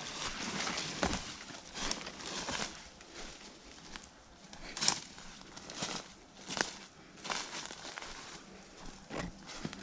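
Irregular crunching and rustling steps, with scattered sharp clicks, the sharpest about five seconds in.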